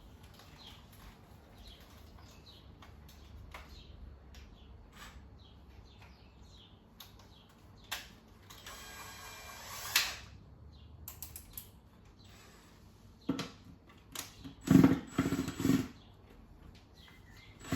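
Scattered clicks and creaks of hand tools working at the plastic handle fixings of a Numatic wet-and-dry vacuum, with a rasping scrape about halfway through and a few louder knocks near the end. The fixing resists, and turning it harder would mash its head.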